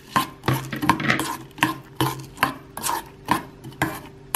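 A metal spoon stirring puffed rice into melted dark chocolate in a stainless-steel bowl, scraping through the mixture and knocking against the bowl's side about twice a second.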